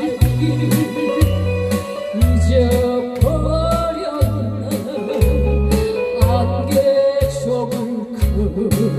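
Upbeat trot song played over the performance sound system, with a steady drum beat of about two hits a second, a bass that pulses about once a second, and a wavering melody line over it.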